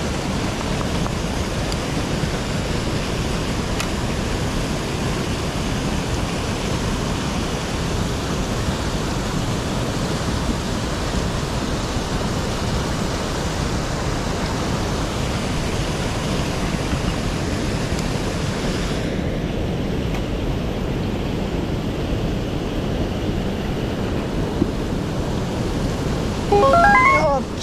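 Steady rush of a mountain stream's flowing water, duller from about two-thirds of the way in. Near the end comes a short, louder pitched sound that rises and falls.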